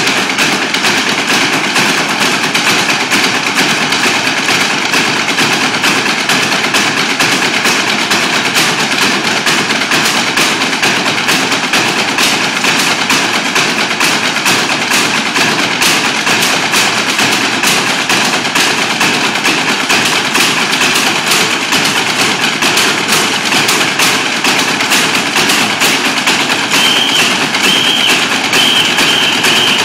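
A group of drummers playing a fast, unbroken roll with drumsticks on the hard steps of a stepped platform, a dense continuous rattle of many stick strokes. A faint high ringing tone comes and goes near the end.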